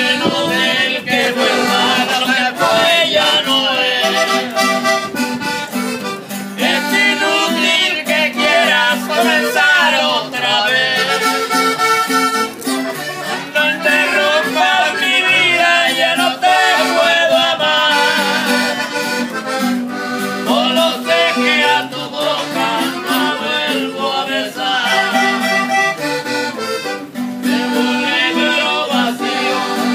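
Live norteño-style duo playing a button accordion and a guitar: the accordion carries a busy melody over steady strummed chords and bass notes.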